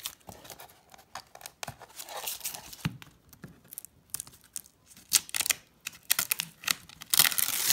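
Tape and cling film being peeled and crinkled off a mosaic board: irregular crackling and tearing, loudest near the end.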